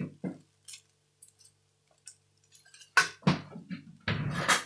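Metal ladle scraping and clinking against a coated wok while stirring fried rice: a few light taps, then louder scraping strokes about three seconds in and again just before the end.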